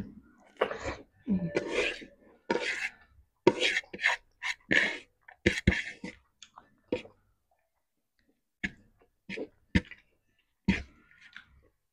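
Close-up mouth sounds of a person eating rice and deep-fried fish by hand: chewing and lip smacking in short, irregular bursts, thick for the first six seconds or so, then a few scattered smacks.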